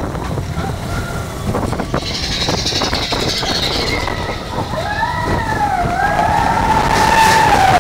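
Mine-train roller coaster rattling and rumbling along its track at speed, with wind on the microphone. About five seconds in, a long wavering high-pitched squeal rises over the rumble and holds.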